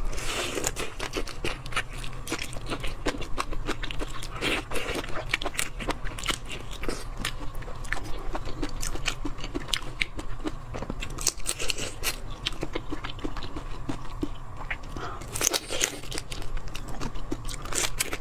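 Close-miked biting and chewing of large marinated black tiger shrimp: the shells crunch and crackle in many small sharp clicks, with a few louder bites.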